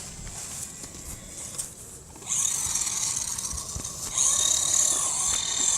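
Small electric motor of a toy remote-control off-road car whining at full throttle. It starts about two seconds in as a high whine, breaks off briefly and comes straight back louder.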